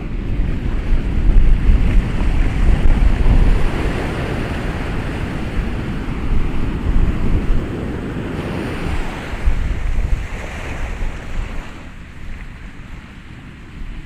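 Ocean surf: waves breaking and washing up the shore in a continuous noisy roar. The loudest surge comes in the first few seconds, a smaller one about ten seconds in, and the wash dies down near the end.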